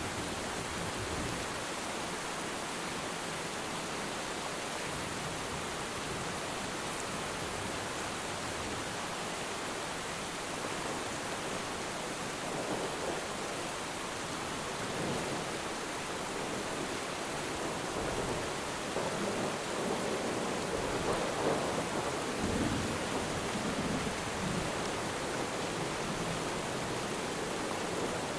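Steady rain falling on water, an even hiss. Distant thunder rolls in from about halfway through, a long low rumble that swells and fades over several seconds.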